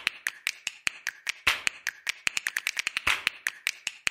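A rapid, irregular series of sharp clicks or taps, about six a second, some louder than others.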